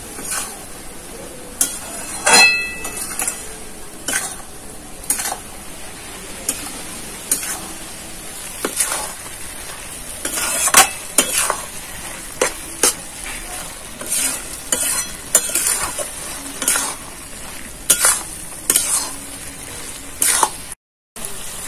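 Metal spatula stirring and scraping ash gourd curry around a metal wok, in irregular strokes over a steady sizzle of frying in ghee. The pan gives a short ringing clink about two seconds in, and the sound cuts out for a moment near the end.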